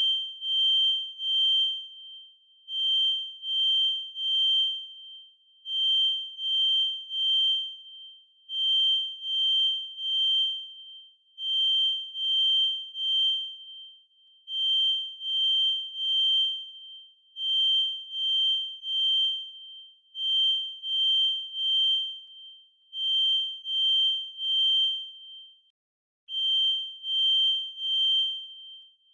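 Kidde FireX i4618AC smoke alarm sounding its full alarm: a high-pitched electronic beep in the three-beep temporal pattern. Each set of three beeps is followed by a short pause, and the sets repeat about every three seconds. There is a brief dropout about 26 seconds in before the pattern resumes.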